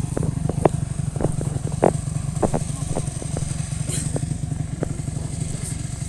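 Dirt bike engine idling steadily, with scattered brief high-pitched blips over it.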